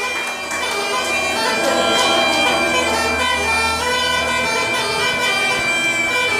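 Bulgarian gaidas (goatskin bagpipes) playing a lively folk tune together: a quick, ornamented melody over a steady, unbroken drone.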